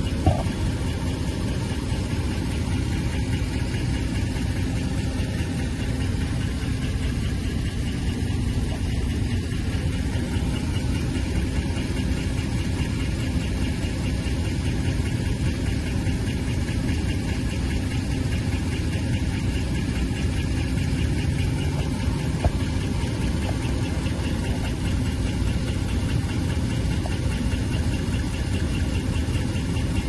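5.7 L HEMI V8 idling steadily with a fast, even ticking, the engine tick being chased. Two brief louder clicks come, one near the start and one about two-thirds of the way through.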